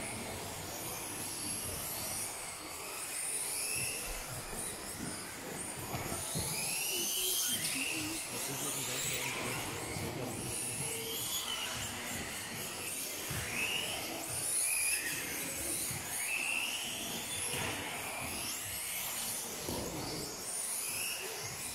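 Several RC off-road model buggies racing, their motors whining repeatedly up and down in pitch as they accelerate and brake around the track, with tyre and track noise underneath.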